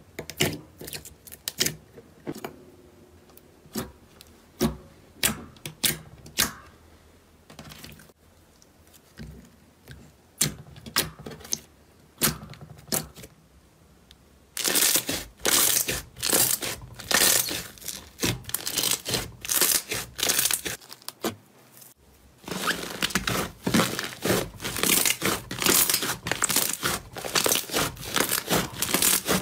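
Slime squished and worked by hand. First, sparse wet clicks and pops as clear slime is pressed in a glass bowl. From about halfway, dense crackling and crinkling as thick white slime is kneaded and stretched, with a short pause about three-quarters through.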